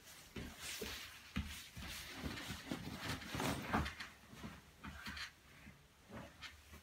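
Irregular soft knocks, thumps and rustling of clothes and bedding as a child moves about and climbs onto a bed.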